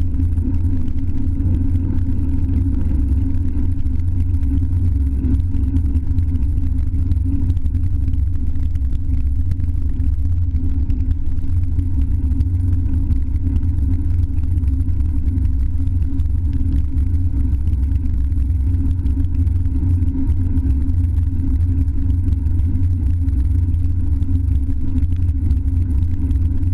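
Steady wind rumble buffeting a handlebar-mounted GoPro Hero 3 on a moving road bike, loud and unbroken, with no let-up, in wet and windy weather.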